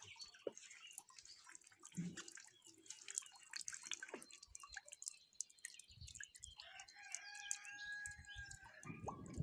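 Faint rain dripping, with a rooster crowing once, a long held call, about seven seconds in. A low rumble of distant thunder begins right at the end.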